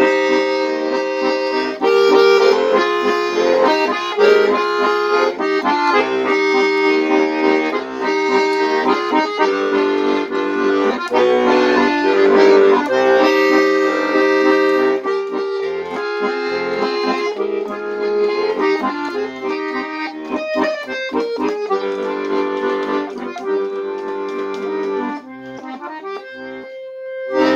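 Button accordion playing an instrumental passage, a melody over held chords, getting quieter near the end.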